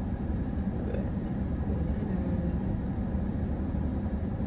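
Steady low hum and rumble of a car's running engine, heard inside the cabin.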